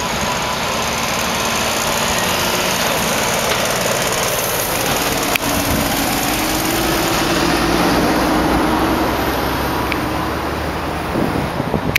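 Scania T-series V8 diesel with an open exhaust pipe running at low revs as the truck and trailer move off slowly. The engine note swells to its loudest about eight seconds in and eases near the end.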